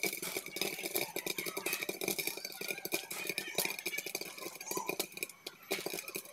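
White jowar (sorghum) kernels popping dry, without oil, in a lidded pan: a dense, rapid crackle of many small pops.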